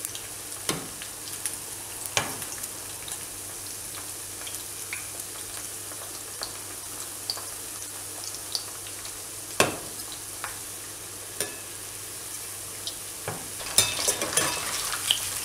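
Batter-coated cauliflower florets deep-frying in hot oil, a steady sizzle, as they cook toward golden brown. A metal slotted spoon knocks against the pan now and then as they are stirred, with a busier run of clinks near the end.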